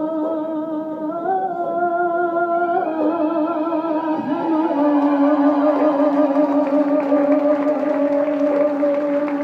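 A woman singing a Kurdish folk song live, holding long notes with vibrato, the last one held for several seconds. Crowd noise swells underneath from about halfway through.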